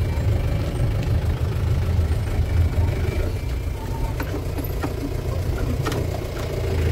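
Car engine and road rumble heard from inside the cabin while driving slowly, a steady low drone, with a few light clicks about four to six seconds in.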